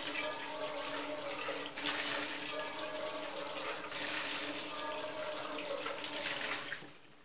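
Water running from a kitchen tap and splashing, shut off abruptly near the end.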